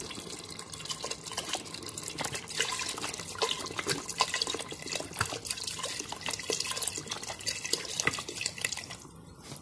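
Water poured from a plastic jug into a clay pot of curry, a steady splashing stream into the liquid that stops shortly before the end.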